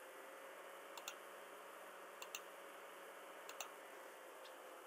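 Faint computer mouse clicks, about three, each a quick press-and-release pair, as lines of a drawing are picked one at a time, over quiet room hiss.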